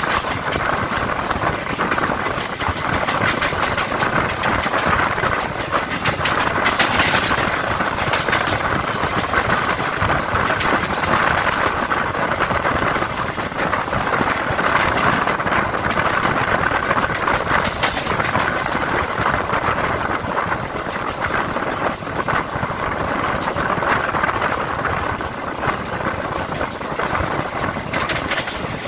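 Suburban EMU local train running along the track: a steady rushing rail noise with scattered clicks of the wheels over rail joints.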